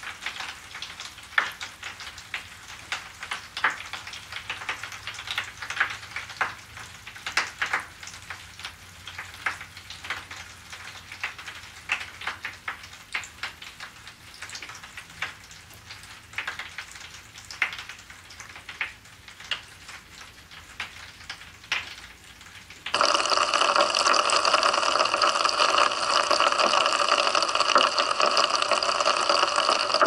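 Mr. Bubble Magic Bath Crackles dissolving in bath water: many sharp, irregular crackles and snaps, dense like popping candy. About 23 seconds in this cuts abruptly to a loud steady rush of water.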